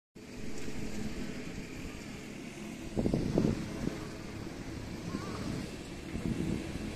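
Wind buffeting the phone's microphone as a low rumble, with stronger gusts about three seconds in.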